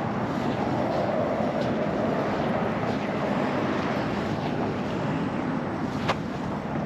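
Steady road traffic noise from cars crossing the bridge, with one sharp click about six seconds in.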